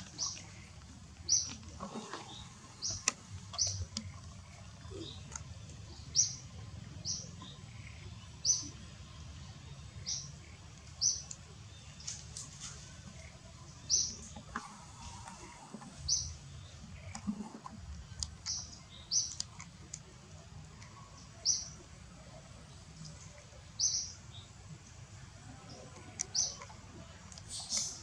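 A bird calling with short, high chirps repeated about once a second at uneven intervals, over a low steady background rumble.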